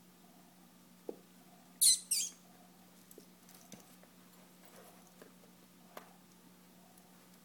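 A small dog gnawing a chew bone, with faint scattered clicks of teeth on the bone. About two seconds in come two loud, high squeaks a fraction of a second apart.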